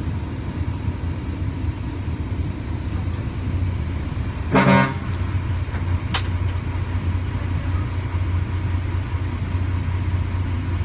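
Steady low drone of a dump truck's diesel engine heard from inside the closed cab, with one short horn toot about four and a half seconds in and a single sharp click soon after.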